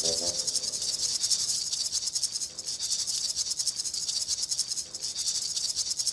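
Background music driven by a fast, steady shaker rhythm.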